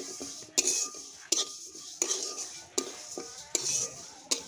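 Flat metal spatula scraping round a dry iron kadai as moong dal is stirred and dry-roasted, the hard lentils rattling across the pan. There are about six strokes, one every three quarters of a second.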